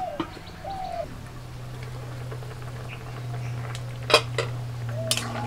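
Aluminium cooking lid clanking against a wok: small taps near the start, then two sharp clanks about four seconds in as it is lifted off the boiling vegetables. Short bird calls and a steady low hum behind.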